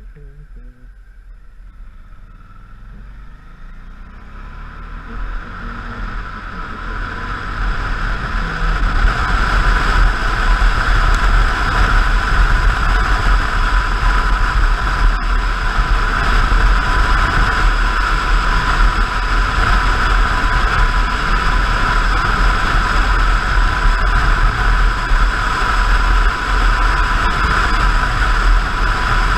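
Motorcycle accelerating out of a bend, its engine pitch rising over the first several seconds, then a steady, loud rush of wind over the microphone at road speed with the engine running beneath it.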